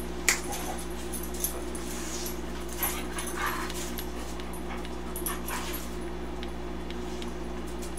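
A steady low electrical hum with several tones, with a few faint light ticks as a test lead's probe is touched to points on a circuit board.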